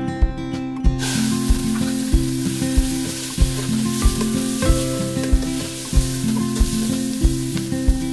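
Liver pieces dropped into hot oil in a stainless steel pot, sizzling steadily from about a second in as they are sautéed and stirred with a spoon. Acoustic guitar music with a regular beat plays underneath.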